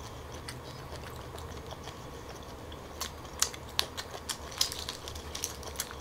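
Steamed tiger prawn shells crackling and snapping as they are broken and peeled by hand: a few faint clicks at first, then quick irregular clicks from about halfway.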